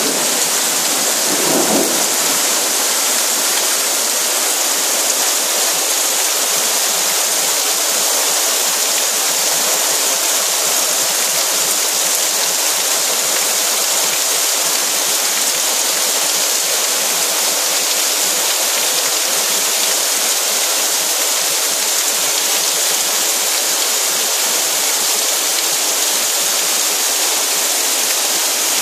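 Heavy summer downpour: a dense, steady hiss of rain pouring onto flooded paving. A brief low rumble sounds about a second and a half in.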